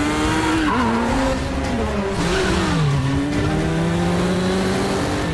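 Motorcycle engine revving hard at speed, its pitch climbing, dropping sharply just under a second in and again around three seconds, then holding steady.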